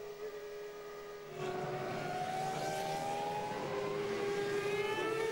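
Formula One V10 engines at high revs. First comes the steady, high-pitched note heard onboard the Williams-BMW. About 1.4 s in a louder engine note takes over and rises slowly in pitch as the cars accelerate.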